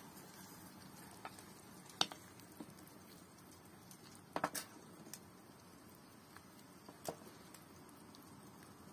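Cooking at a wood-burning tent stove with a steaming pot of soup being stirred with a wooden spoon: a few scattered light clicks and knocks over a faint steady hum, the sharpest about two seconds in and a quick cluster about four and a half seconds in.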